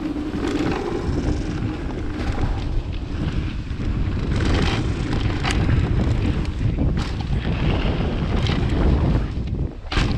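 Wind rushing over the microphone and tyres rolling over a dirt trail as a mountain bike descends at speed, with scattered short knocks and rattles from the bike over bumps.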